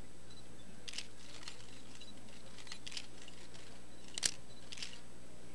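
Camera shutters clicking as press photographers take pictures: a handful of short, separate clicks, the sharpest a little past four seconds in.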